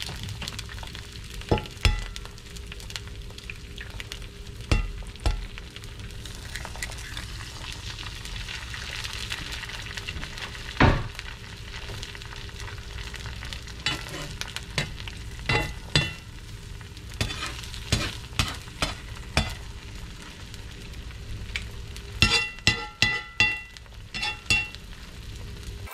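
Eggs frying in a cast iron skillet: a steady sizzle with occasional sharp knocks. Near the end a metal spatula clinks against the pan several times in quick succession.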